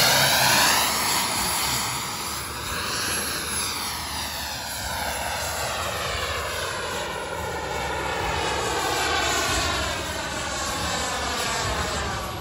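Aircraft flying past in a display: a continuous rushing engine sound, loudest at first, whose tone sweeps and shifts as the aircraft passes and moves across the sky.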